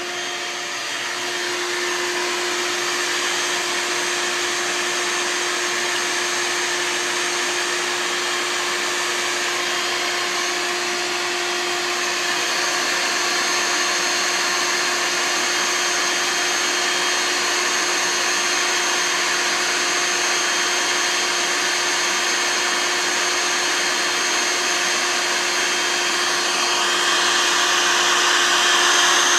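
Bee vacuum running steadily while sucking up a honey bee swarm: an even airy rush with a steady hum, growing a little louder near the end.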